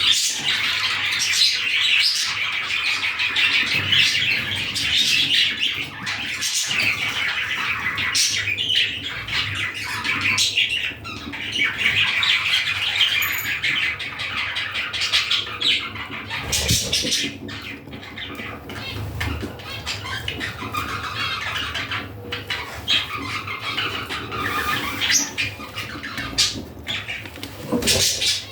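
Budgerigar chattering and warbling continuously, with sharp clicks here and there: the contented chatter of a happy budgie.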